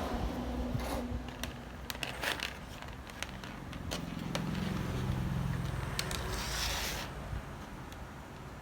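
Scattered sharp clicks and scraping, with a low hum in the middle and a short hiss near the end.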